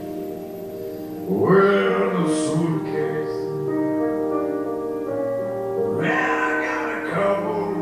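Music: a song with singing over held chords, a new phrase entering about a second in and another near the end.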